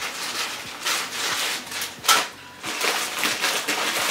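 Plastic bags crinkling and rustling in irregular crackles as they are handled, with a sharper crackle about two seconds in.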